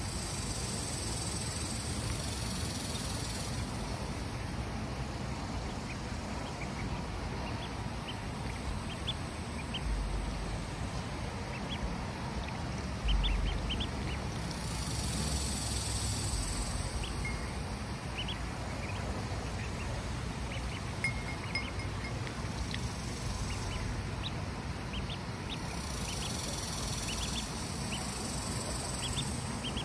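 Ducklings peeping: many short, high cheeps scattered through, thickest in the second half. Over them, a high buzzing hiss swells and fades three times, and there is one low bump about halfway through.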